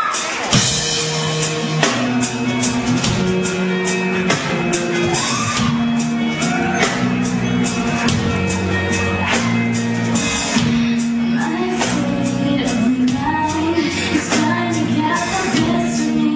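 A song with singing over a steady drum beat.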